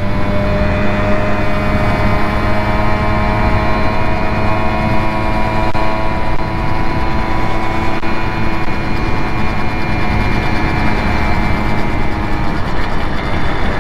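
Simson two-stroke moped engine running at steady high revs on the open road, holding an almost constant pitch, with wind rushing over the camera microphone.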